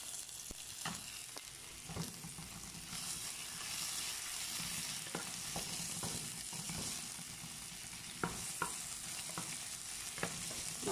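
Sliced onion and garlic sizzling gently in olive oil and butter in a nonstick frying pan, with a wooden spatula stirring and now and then clicking against the pan. The heat is kept low so the olive oil does not burn.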